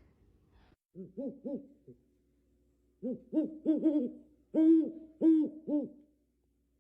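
Pet owl hooting a run of short, arched hoots: three at first, then after a pause a quicker series of about nine in two bunches. It is answering a call for a "who".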